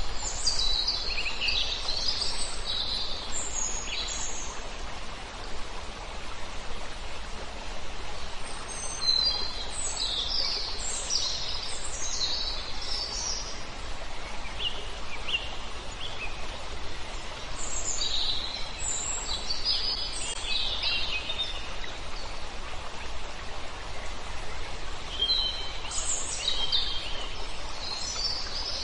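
Small birds chirping in scattered flurries over a steady outdoor hiss of wind and water.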